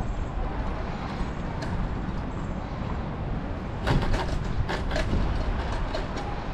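Steady low wind rumble on a bicycle-mounted action camera's microphone. About four seconds in, a run of irregular clicks and rattles begins as the bicycle rolls over stone paving tiles.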